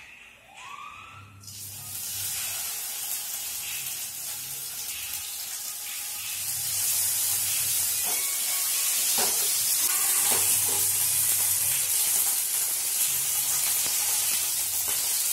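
Masala-coated croaker fish sizzling in hot coconut oil in a flat pan, the sizzle starting suddenly about a second and a half in as the fish is laid in and growing louder a few seconds later. A few faint clicks of handling come in the middle.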